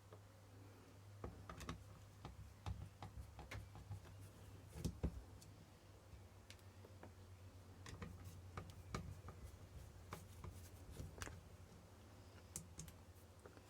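Faint, irregular small clicks and ticks of a screwdriver undoing the screws in the plastic back of a Unilite CT2 LED torch, over a low steady hum.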